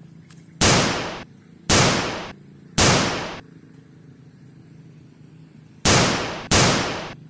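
Pistol gunshot sound effects, five shots: three about a second apart, then after a pause of about two and a half seconds two more in quicker succession. Each bang rings for about half a second and then cuts off abruptly.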